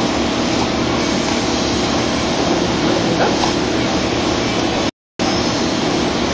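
Steady machinery noise in a factory room, a dense hum with hiss. It cuts out completely for a split second about five seconds in.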